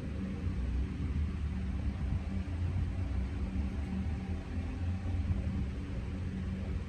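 Steady low rumble with a faint hum over it, unchanging, with no distinct events.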